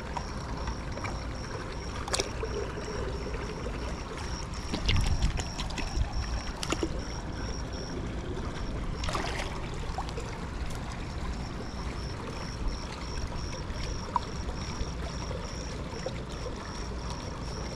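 Pool water sloshing and trickling steadily, with a few short knocks and splashes. A high pulsing tone repeats several times a second and stops for a few seconds midway.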